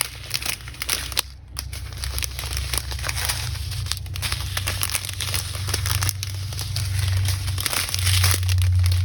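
Small plastic bags of diamond-painting drills crinkling and rustling as they are handled and sorted, with an irregular crackle throughout. A steady low hum runs underneath and grows stronger near the end.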